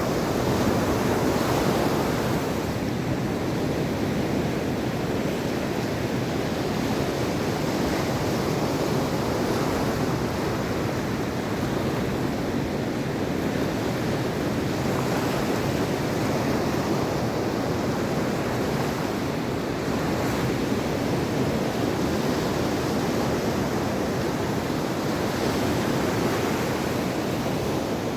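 Mediterranean Sea waves breaking and washing on the shore, a steady surf with slow swells in level, with some wind on the microphone.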